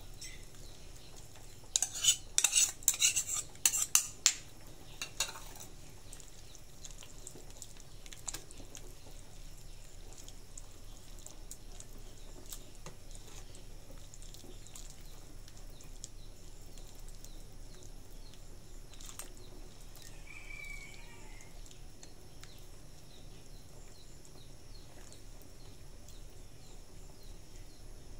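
Metal ladle clinking and scraping against the side of a stainless steel stockpot while stirring soup: a burst of sharp clinks about two seconds in, lasting a couple of seconds, then only a few light taps.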